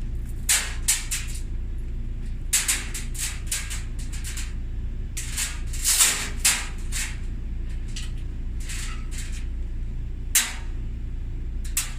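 Small metal chain clinking and jingling in short bursts as it is handled and hooked in place to hold a dryer lid open, over a steady low hum.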